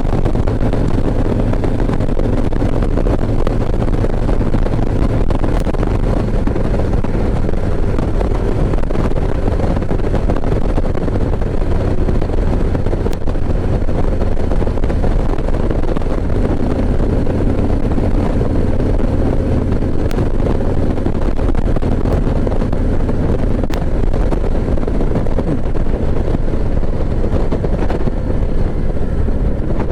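Harley-Davidson Ultra Classic Limited's V-twin engine running at cruising speed, heard from the rider's helmet with steady wind rush over the microphone. Near the end the engine note starts to rise as the bike accelerates.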